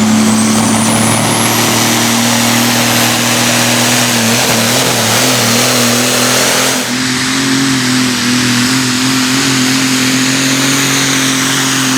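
A pulling tractor's engine runs at full throttle under load while hauling the weight sled, holding a steady high pitch. A high whine climbs over the first couple of seconds, and the engine note lifts slightly about halfway through.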